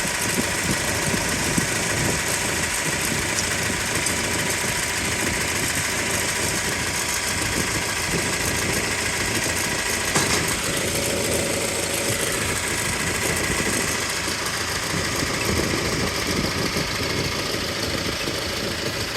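An engine running steadily, with a short knock about ten seconds in.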